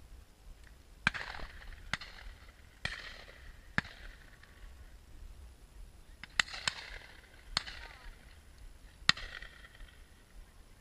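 Shotguns firing at driven game some way off: about eight sharp single reports, two of them in a quick pair, each trailing off in a short echo.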